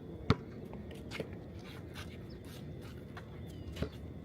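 A basketball bouncing on a hard outdoor court: a few sharp, irregularly spaced bounces, the loudest about a third of a second in, over a steady low background noise.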